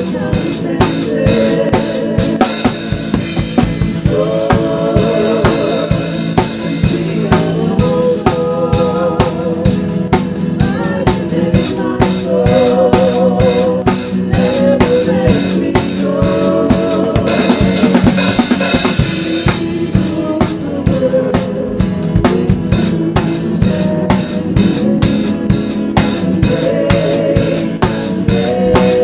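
Live worship band music: a drum kit keeps a steady beat with kick, snare and cymbals while a singer holds long notes with vibrato over sustained keyboard chords.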